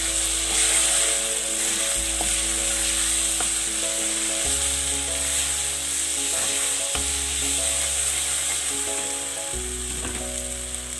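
Ground bottle gourd and tomato chutney sizzling steadily in hot tempering oil in a kadai, stirred with a steel ladle. Soft background music with slow chord changes plays underneath.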